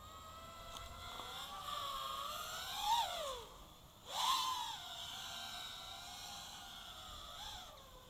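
FPV quadcopter's brushless motors and propellers whining, heard from the camera mounted on the quad. The pitch climbs to a peak about three seconds in and drops away as the throttle is chopped, then surges back up a second later. After that it holds fairly steady, with a brief rise near the end.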